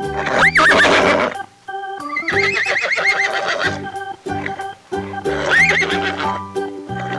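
A horse whinnying three times, each call shaking and falling in pitch, the middle one the longest, over light background music with a steady run of notes.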